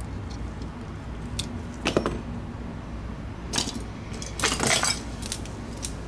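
Scattered small clicks and clinks of metal tweezers and the plastic parts of a disassembled Logitech Anywhere 3 mouse being handled as its battery pack is lifted out. The sharpest click comes about two seconds in, and a quick cluster of clinks comes around four and a half seconds.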